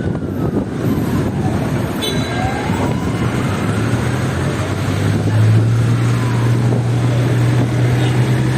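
Road traffic with wind buffeting the microphone; a steady low engine hum comes in about three and a half seconds in and holds.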